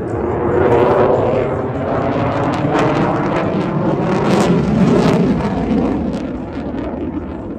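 Aircraft flying past: a loud, rough roar with crackling that swells twice and eases off near the end.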